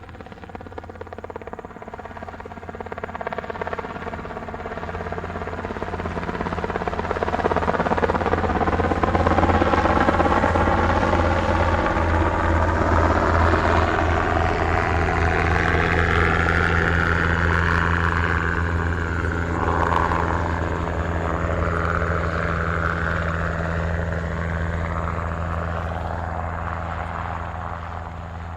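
Vintage Bell 47 piston-engine helicopter with a steady beating rotor, growing louder over the first several seconds and then fading slowly toward the end as it passes.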